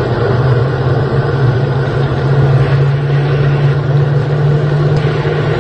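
Jet engine running: a steady, loud rumbling roar with a low hum underneath.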